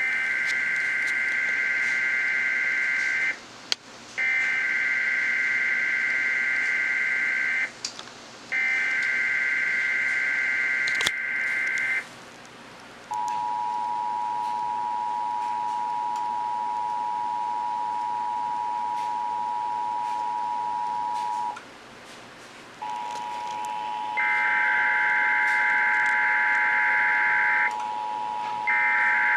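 Emergency Alert System broadcast tones: three harsh digital SAME header data bursts of about three seconds each, followed by the EAS two-tone attention signal held steady for about eight seconds. After a short break a second attention tone starts, and near the end a new run of header data bursts plays over it.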